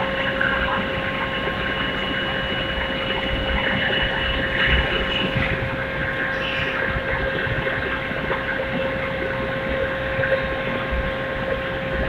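450 kW, one-tonne induction melting furnace running while it pours molten copper: a steady high hum from the coil and power supply over a continuous rumbling machinery noise.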